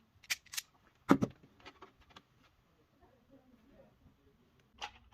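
Wire stripper snipping and clicking as insulation is stripped off a wire end: a few sharp clicks, the loudest about a second in, with light handling ticks between.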